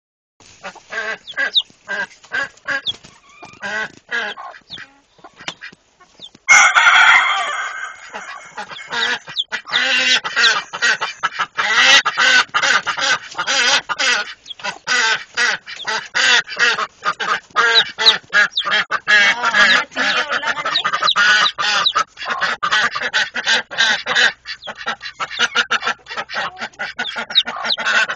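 A hen and her chick calling: a stream of short, rapid calls, sparse at first and then denser and louder from about six seconds in.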